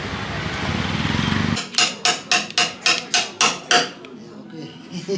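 Small hammer striking a wood-carving chisel into a wooden block: about eight sharp blows at roughly four a second, each with a short metallic ring, starting about a second and a half in.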